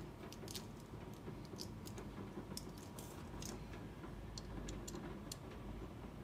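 Light, irregular clicks and ticks of a WE Walther P38 airsoft pistol's lower frame and its small parts being handled by hand during disassembly.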